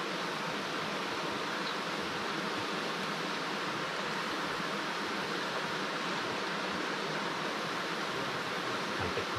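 Steady, even hiss of outdoor background noise, with no distinct events.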